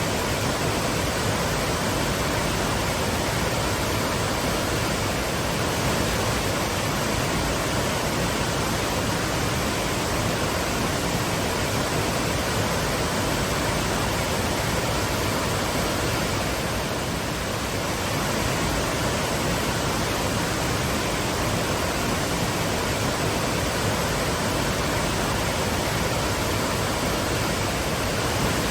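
Waterfalls: a steady, even rush of falling water that stays unchanged throughout.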